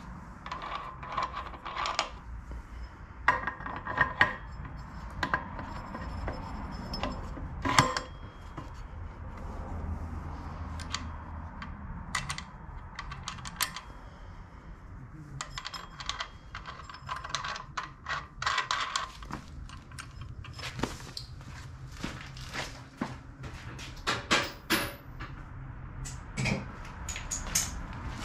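Metal parts of a 30 series torque converter clinking and knocking as the driver clutch is handled, slid onto the engine shaft and its bolt fitted by hand: irregular light clicks and knocks, the sharpest about eight seconds in.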